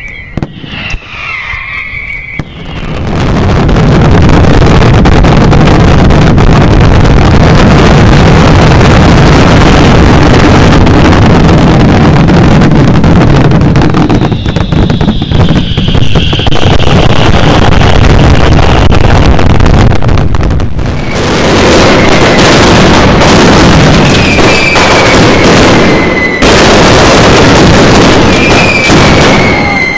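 Mascletà firecracker barrage: rapid, overlapping bangs merging into one continuous din that starts about three seconds in and is loud enough to overload the recording, with short dips and a few falling whistles near the end.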